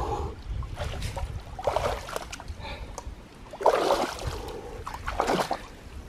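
Water splashing and sloshing as a person wades through shallow water: a run of separate splashes about a second apart, the loudest about four seconds in.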